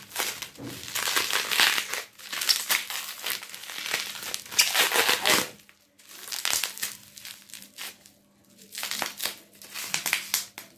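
Bubble wrap crinkling and rustling as it is pulled and peeled off a plastic conditioner bottle, in irregular crackly bursts with short lulls about six and eight seconds in.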